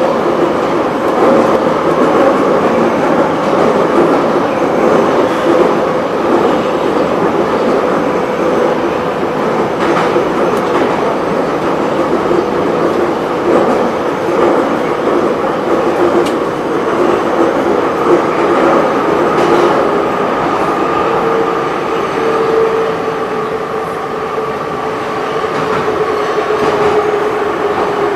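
Soviet-era Ezh-3/Em-508T metro train running through a tunnel, heard from inside a car by the doors: a steady loud rumble and rush with a steady whine that shifts slightly in pitch about twenty seconds in, and a few sharp clicks from the wheels.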